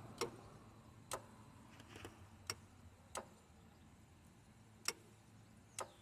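Air-conditioning compressor magnetic clutch on a 2007 Honda CR-V clicking in and out as it is switched by an activation tool, with the engine off: about six sharp clicks at uneven intervals. The clicks are a positive clutch engagement now that a shim has been removed to close the air gap.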